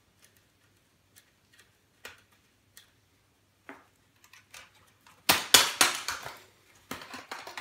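A few faint clicks and taps, then from about five seconds in a loud rapid run of cracking and snapping as an old Acer laptop's plastic case is pried apart and its clips pop loose, with a short pause just before the end.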